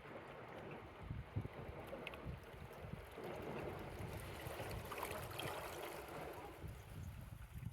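Gentle waves lapping over rocks, the wash swelling about three seconds in and easing near the end, with wind buffeting the phone's microphone.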